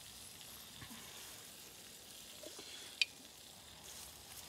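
Beaver meat sizzling faintly on a small grill as basting seasoning is brushed on and drips into the fire. A single sharp click about three seconds in.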